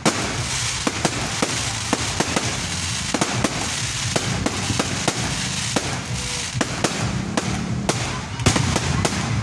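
Fireworks display: aerial shells bursting overhead in a continuous, irregular crackle of bangs, with a few heavier bangs near the end.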